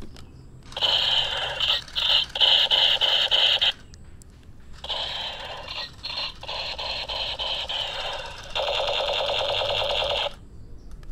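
Battery-powered Iron Man toy revolver playing its electronic shooting sound effect through its small built-in speaker: three bursts of buzzy, warbling noise a few seconds each, the last a fast, even pulsing.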